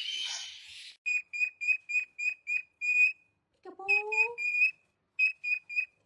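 Parrot whistling: a fading screech, then a quick run of short high pips at one pitch, about three a second. Near the middle comes a lower, rising whistle, and near the end three more pips.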